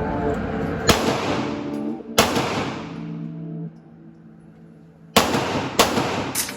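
Five gunshots at irregular spacing, each leaving a short ringing tail, with background music playing underneath; there is a quieter lull of about a second and a half before the last three come in quick succession.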